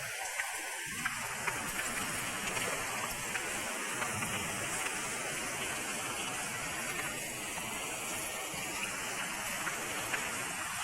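Steady rush of heavy typhoon rain and running water, with faint scattered ticks throughout.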